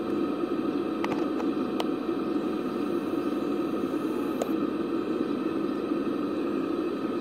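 A steady low hum with a few faint light clicks, about one, two and four and a half seconds in.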